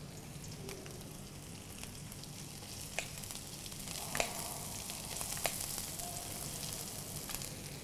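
Chopped onions, garlic, ginger and green chilli frying in hot oil in a pan, a steady sizzle that grows a little louder after the middle, with a few sharp clicks.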